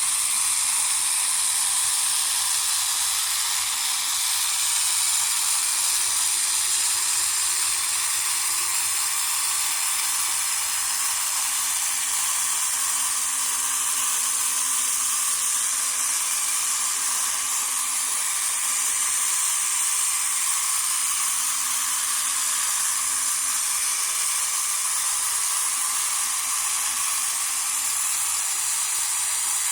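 Single small electric motor and plastic gear-and-cam train of a tabletop robot vacuum kit running steadily, a continuous high whir.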